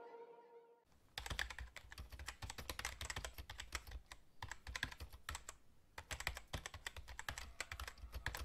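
Keyboard typing sound effect: a fast, irregular run of faint light clicks, starting about a second in and going on until just before the end, as text is typed out on screen.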